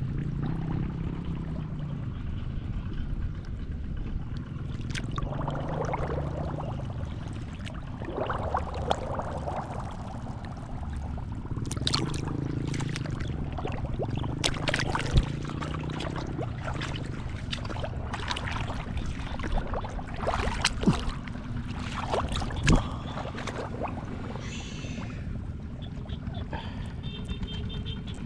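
Water and mud splashing and sloshing in irregular bursts, with sharp knocks here and there over a steady low rumble.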